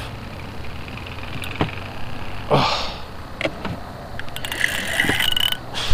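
Spinning rod and reel worked against a big fish holding deep: a few light clicks and knocks over low, steady background noise, with a short high-pitched whine about five seconds in.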